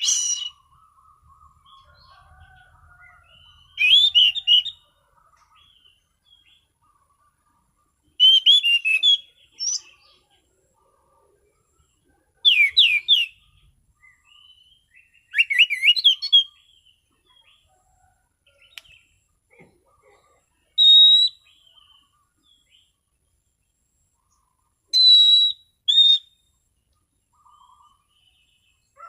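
Anis cendana, a thrush, singing its full, open song: short, loud phrases of quick warbled whistles come every three to four seconds, with soft, quiet notes in the gaps between them.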